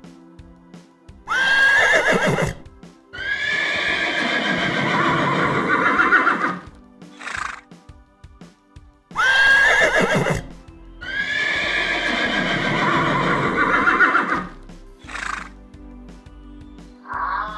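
Horse whinnying: a short call that starts high and falls, then a longer wavering whinny, with the pair heard twice. Soft background music plays underneath.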